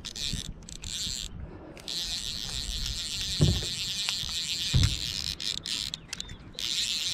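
Fly reel's drag buzzing in stretches as a hooked fish pulls line off, starting and stopping several times. Under it, wind rumbles on the microphone, with two low bumps about three and a half and five seconds in.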